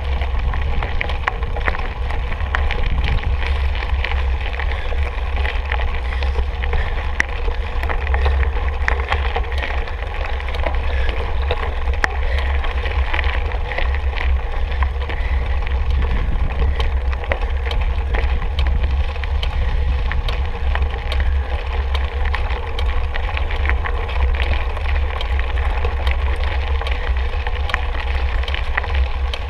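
Mountain bike being ridden over a rough trail: a steady low rumble with many small clicks and knocks of the bike rattling over the ground.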